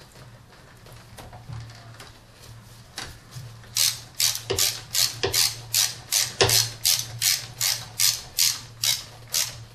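Hand ratchet wrench clicking in a steady run of sharp clicks, about three a second, starting about four seconds in. It is being used to snug down the thermostat housing nuts on a Toyota 3.0 L V6 by hand, slowly, so as not to over-torque them.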